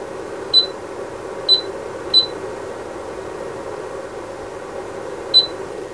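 Siglent SDS1204X-E oscilloscope's front-panel key beeper giving four short, high beeps, one for each softkey press, over a steady low hum.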